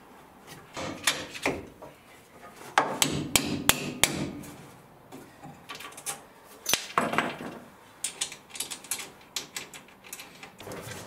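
Hand tools knocking and clinking against the steel engine-mount brackets: irregular sharp metal knocks in small clusters.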